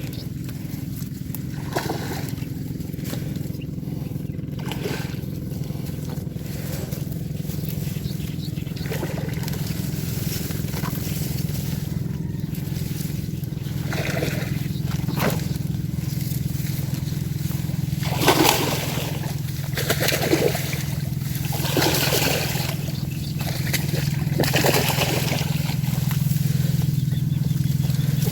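Water sloshing and gurgling over a steady low hum, with several louder rushing surges in the second half, about two seconds apart.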